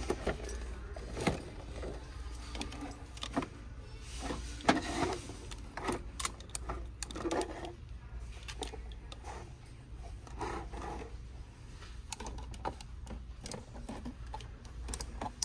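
Glass and plastic perfume and body-mist bottles and their cardboard boxes being handled on a shelf: scattered light clicks, taps and knocks, over a steady low hum.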